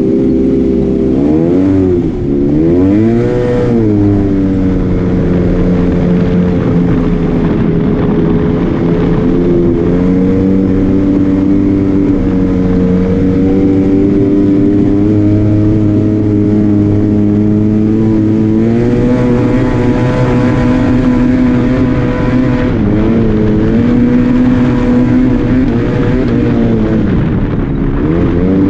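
Arctic Cat Wildcat Trail 700 side-by-side engine running while driving. It revs up and down a couple of times early on, holds a steady pitch for long stretches, picks up about two-thirds of the way in, and eases off and picks up again near the end.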